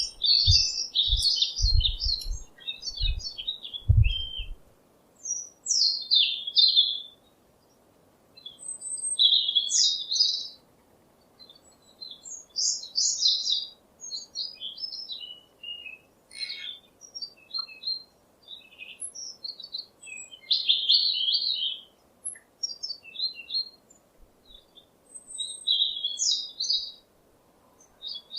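A bird chirping and singing in short high phrases with brief pauses between them, and a few low thumps in the first four seconds.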